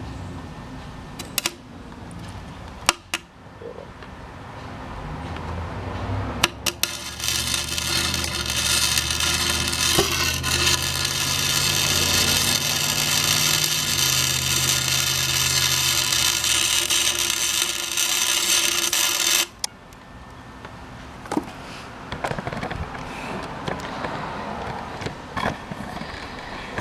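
Arc welding the spider and side gears of an E46 BMW's open differential together to lock it: a loud, even crackling hiss starts about six seconds in and cuts off sharply about thirteen seconds later. A few sharp clicks come before and after it.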